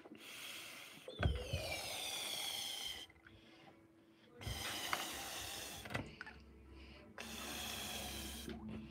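Breath blown by mouth into glitter punch balloons in three long puffs with short pauses between. There is a single thump about a second in.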